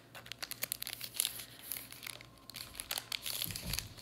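Crinkly packaging around a makeup brush being handled and opened: a run of quick, sharp crackles, with a few dull knocks near the end.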